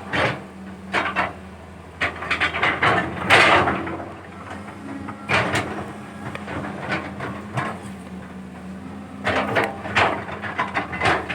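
Caterpillar 320 hydraulic excavator's diesel engine running steadily, its pitch dropping slightly partway through, with bursts of clanks and knocks from the digging work.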